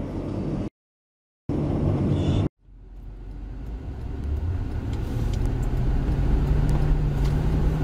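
A car driving, heard from a dashcam inside it: steady engine and road noise with a low hum. The sound cuts out twice in the first few seconds, then fades back in and holds steady.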